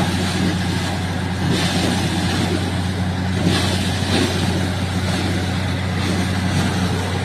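Truck-mounted borewell drilling rig running, its diesel engine giving a steady low drone. A rushing hiss swells briefly twice over it.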